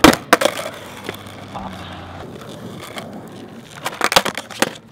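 Skateboard knocking and clattering on asphalt during nollie pop shove-it attempts: a few sharp knocks of the board hitting the ground at the start, then another quick run of knocks about four seconds in as the nose is popped and the spun board comes down.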